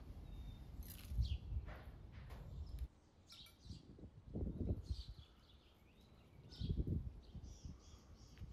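Small birds chirping and tweeting in short high calls, with a couple of soft low bumps about four and a half and seven seconds in.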